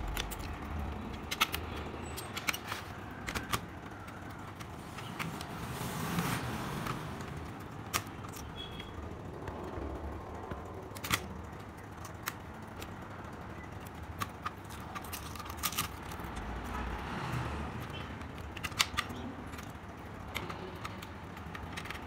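Scattered small clicks and taps of a screwdriver and fingers on a laptop's screws and plastic case as it is taken apart, at irregular moments over steady low background noise.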